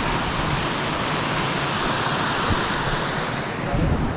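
Steady rush of running water from a mountain stream, with a brief low thump near the end.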